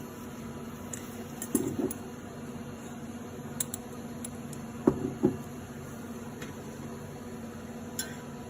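Steady electrical hum with a few short knocks and clinks of objects being handled, two pairs of them about a second and a half in and about five seconds in, plus some faint ticks.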